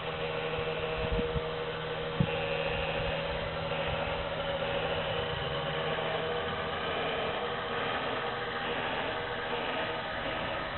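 USA 44-tonner large-scale model locomotive running along garden track, its electric motor, gearing and spinning rotary rail broom making a steady whine and hiss. A few soft knocks come in the first two seconds.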